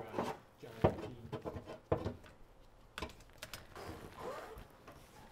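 Three sharp knocks about a second apart, with softer clatter between them.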